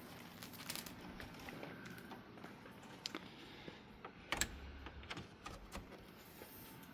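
Light scattered clicks and knocks of a plastic upright vacuum being handled and readied, with a louder knock and thud about four and a half seconds in. The motor is not running.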